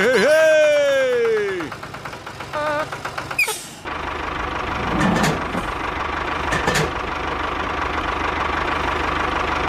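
A drawn-out voice sound falling in pitch, then from about four seconds in a steady tractor engine idling sound.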